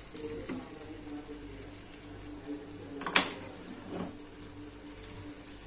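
Metal spatula stirring and tossing noodles in a kadai, knocking against the pan's metal side, with a sharp clank just after three seconds and a lighter knock a second later, over a steady low hum.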